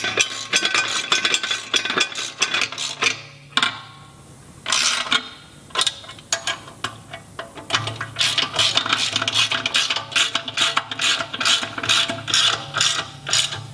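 Socket ratchet clicking in quick runs while tightening the nylock nuts on the control arm guard bolts, against an Allen key holding the bolt heads. There is a pause in the middle, then a longer run of clicking.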